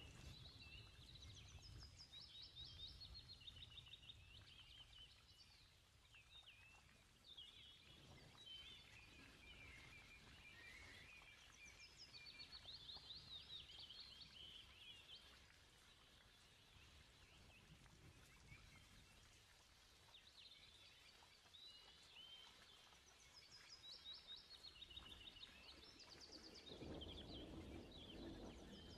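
Faint birds chirping in quick, high, repeated trills, coming and going throughout, with a soft low rustle near the end.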